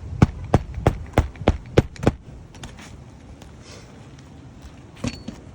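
Hammer striking quickly, about three blows a second, seven in all, stopping about two seconds in; one more knock near the end.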